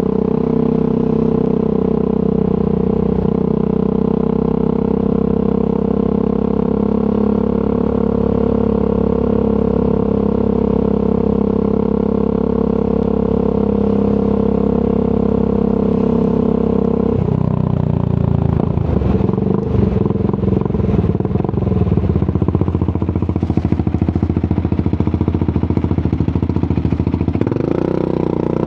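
Triumph Scrambler 400 X single-cylinder engine through an aftermarket Zard exhaust, riding at a steady pitch, then dropping suddenly to a lower, rougher beat about two-thirds of the way through as the bike slows, before the note rises again near the end.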